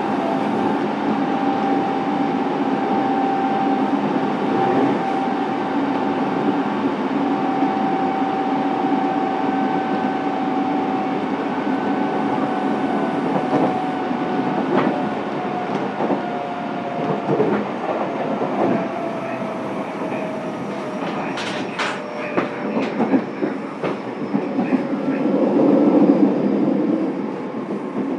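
Fukuoka City Subway 2000 series train running, heard from inside the car: the whine of its Hitachi GTO inverter over wheel and rail noise with some rail-joint clicks. The whine holds steady, then slowly drops in pitch through the second half as the train slows.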